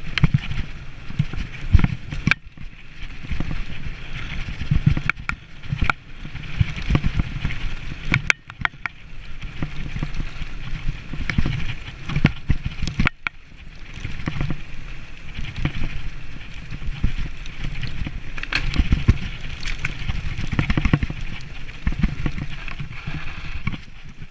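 Mountain bike ridden over a dirt forest track: continuous tyre and ride rumble with irregular knocks and rattles as the bike goes over bumps.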